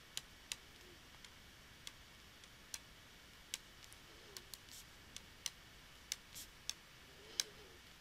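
A pen stylus tapping and clicking on a tablet while handwriting, heard as sharp, faint ticks spaced irregularly, about two a second, over quiet room tone.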